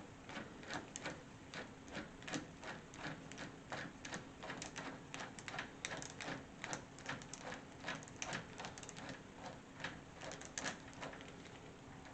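Ratcheting screwdriver clicking in quick, irregular runs of about three or four clicks a second, as screws are turned on a deadbolt lock, thinning out near the end.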